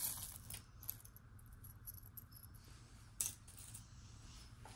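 Metal jewelry chains and pieces clinking faintly as a tangled chain necklace is drawn out of a heap of jewelry on a cloth, with a sharper click about three seconds in.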